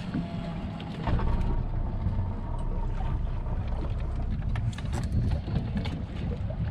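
Steady low rumble of a fishing boat on the water, with wind on the microphone, growing louder about a second in.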